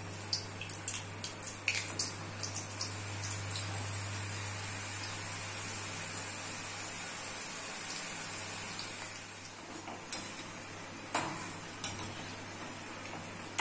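Besan sev deep-frying in hot oil in a kadai, a steady sizzle with a burst of small crackles in the first couple of seconds after the noodles are turned. A few light metal knocks near the end, as a perforated frying spoon touches the pan.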